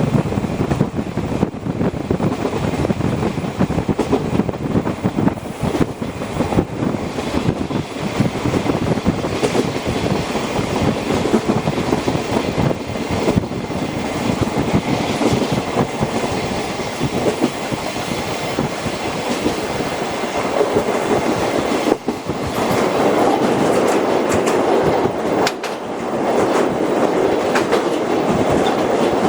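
Locomotive-hauled passenger coach running along the line, heard from inside the coach: steady rumble of the wheels with rapid clicks and clacks over the rail joints. The running noise gets louder about three quarters of the way through.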